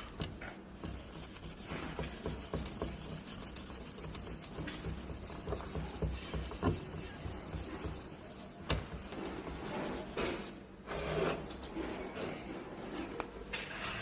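Hand scraping and rubbing on a car radio's LCD panel as the polarizer film and glue are worked off, with scattered small clicks and taps.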